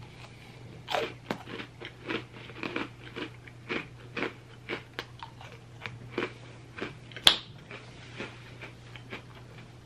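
Golden Oreo sandwich cookie being bitten and chewed close to the microphone: a run of crisp crunches, about two a second, with one sharp click about seven seconds in.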